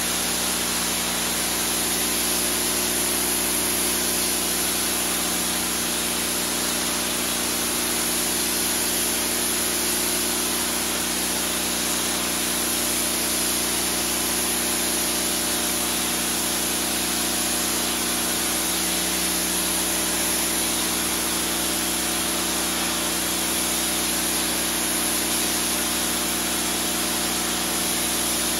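Pressure washer spraying a soaked wool rug, the jet hissing steadily into the wet pile over a constant pump hum.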